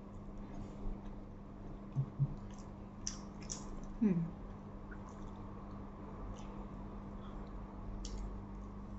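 Eating at a table: soft chewing and the squish of peeled grilled eggplant and fish pulled apart by hand, with scattered small clicks over a steady low hum. A short falling tone about four seconds in.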